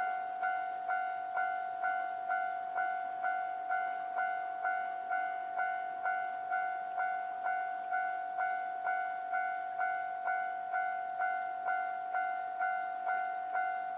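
Japanese railway level-crossing warning bell ringing: a steady ding-ding of one ringing tone, struck about twice a second. It signals that a train is approaching and the crossing is closed.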